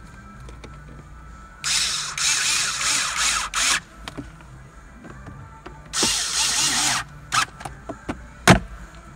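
Cordless power screwdriver running in two bursts, about two seconds and then about one second, driving the glove box screws back into the dashboard. A few light clicks follow, and a sharp knock near the end.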